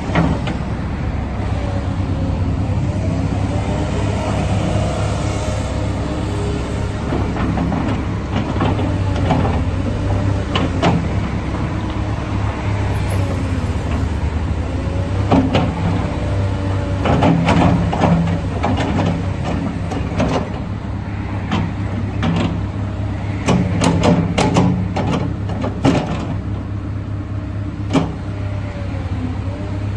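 Diesel engine of a JCB JS200LC tracked excavator running steadily under hydraulic load, with faint tones rising and falling as the machine slews and works its boom and bucket. In the second half, a run of sharp metallic clanks and knocks from the steel tracks and bucket gear.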